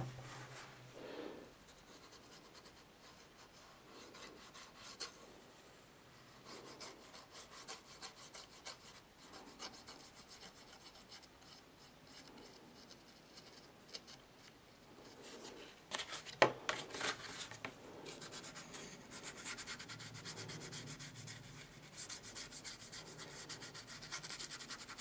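Faint rubbing of a paintbrush stroked over paper card, stroke after stroke, as green ink is brushed on. A single sharp tap about two-thirds of the way through.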